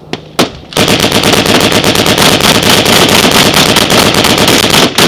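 Close, very loud automatic gunfire during a firefight: two single shots, then a sustained burst of roughly ten rounds a second lasting about four seconds, and another shot at the end.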